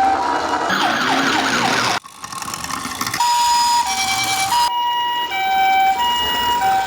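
Two-tone ambulance siren of the Japanese kind, alternating a high and a low tone about every 0.7 s ("pee-poh"). The sound cuts off abruptly about two seconds in and resumes a second later.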